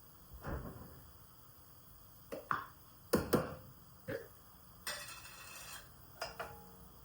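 Dishes and utensils being handled: a series of separate knocks and clinks, some in quick pairs, a short hiss about five seconds in, then a couple of light ringing clicks.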